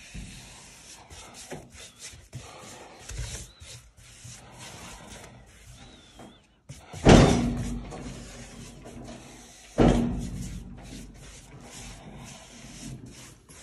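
Dry paintbrush and hand brushing over a plaster surface, giving soft rubbing strokes as loose grit is swept off. Two loud thumps come about seven and ten seconds in.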